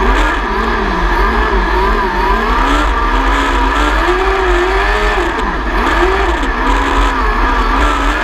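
600cc micro sprint car engine at racing speed, its pitch rising and falling every second or two as the throttle is lifted and reapplied around the track.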